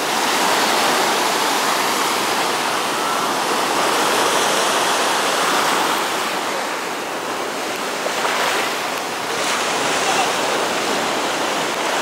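Sea surf breaking over a rock ledge and washing up a sandy shore: a steady rush of water and foam that eases a little midway and swells again near the end.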